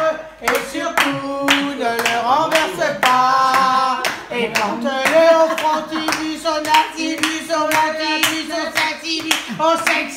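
A group of people singing together while clapping their hands in a steady beat.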